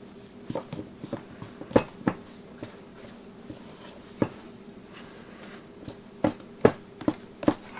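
A mixing spoon knocking irregularly against a stainless steel bowl while stirring a wet bread dough, about a dozen sharp clacks at uneven intervals, a few louder than the rest.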